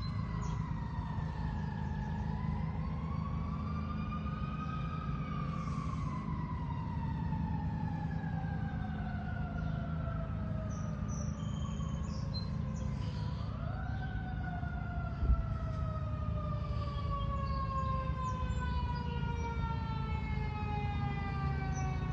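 Fire truck siren in a slow wail: its pitch falls, climbs again, then sinks slowly for several seconds before rising sharply about two-thirds of the way through and sinking slowly once more. A steady low rumble runs underneath, with a single short bump shortly after the sharp rise.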